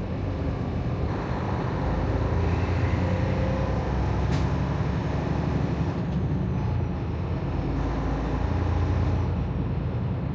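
Freightliner Cascadia semi truck's diesel engine running steadily while the truck creeps along at low speed, a low rumble that swells a little now and then. A single sharp click about four and a half seconds in.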